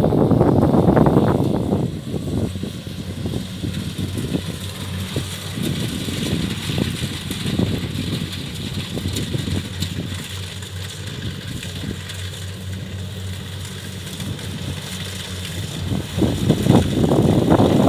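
Diesel engine of a Kubota farm machine running steadily with an even hum. It grows louder and rougher near the start and again near the end.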